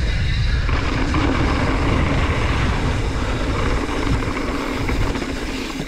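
Wind buffeting the microphone and tyre rumble from a mountain bike riding fast down a bike-park trail, easing off slightly near the end.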